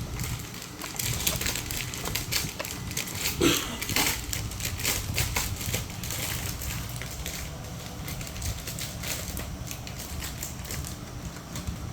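Packaging being handled, with dense, irregular crinkling and crackling, busiest in the first half.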